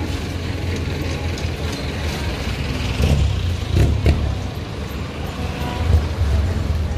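Street traffic: motor vehicles running past on the road, a steady low rumble with a couple of louder passes about three and four seconds in.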